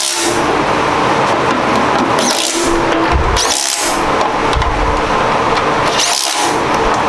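Cordless power driver running down the oil pan bolts on a big-block Chevy engine, in several runs with short breaks between them.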